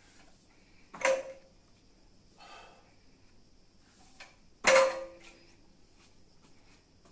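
Plate-loaded EZ-bar deadlift set down on the gym floor: the weight plates land with a sharp metallic clank and a short ring. It happens about a second in and again, louder, near five seconds.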